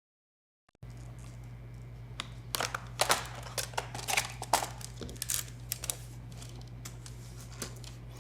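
Spudger prying off a Dell 3100 Chromebook's plastic bottom cover: a run of sharp clicks and snaps as the cover's clips pop loose, thickest in the middle, over a steady low hum.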